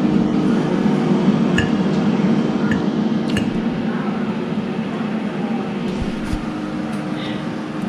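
Someone eating from a plate: chewing, with a few light clinks of cutlery or crockery, over a steady low hum.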